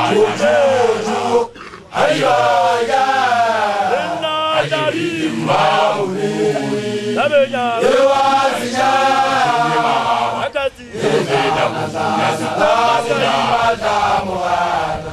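Sesotho initiation-school song of newly graduated initiates (makoloane): a lead man and a crowd of young men chanting loudly together, with short breaks about a second and a half in and near eleven seconds.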